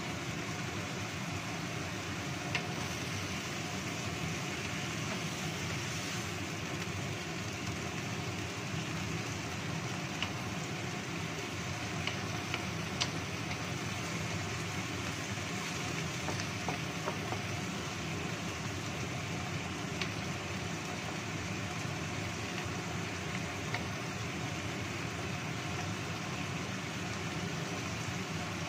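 Steady hiss of vegetables stir-frying in a wok on a gas stove, with a few light clicks of a wooden spatula against the pan.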